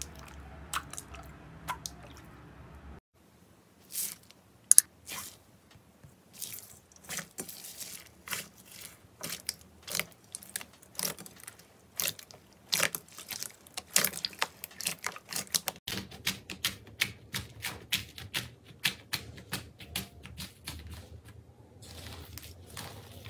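Slime being pressed and worked by hand, giving a dense, irregular run of sharp sticky clicks and crackles, with a change to a softer, duller handling sound about three seconds in.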